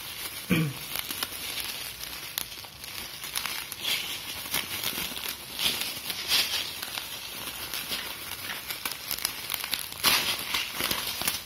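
Bubble wrap and plastic wrapping crinkling and crackling as hands handle and peel it off a package, irregular throughout. There is a short voice sound about half a second in.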